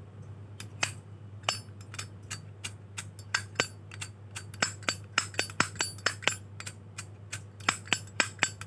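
Zippo lighter being handled: a run of sharp metallic clicks and clinks at irregular intervals, some with a short ring.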